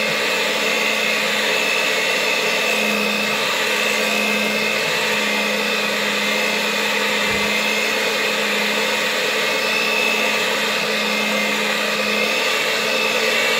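Electric hand mixer running steadily at one speed, its beaters whipping boiled potatoes and butter into mashed potato in a stainless steel saucepan. The motor hums and whines without a break.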